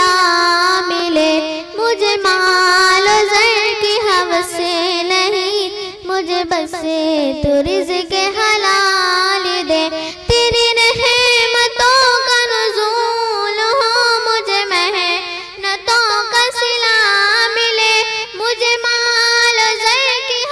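A young girl singing an Urdu devotional dua solo into a microphone, unaccompanied, in long ornamented phrases with a wavering pitch, pausing briefly for breath about ten seconds in.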